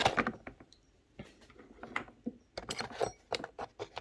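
Small metal soldering tips from a gas torch set clicking and clinking as they are handled, a scattered run of sharp clicks that comes thickest a little past halfway.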